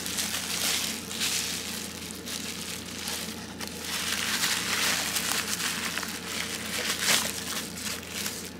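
Bubble wrap crinkling and crackling as hands unwrap a small package, loudest in the middle, with a sharper crackle about seven seconds in.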